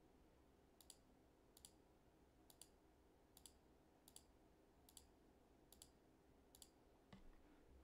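Faint computer mouse button clicks, about eight or nine evenly spaced at a little more than one a second, as curves are selected one by one; otherwise near silence.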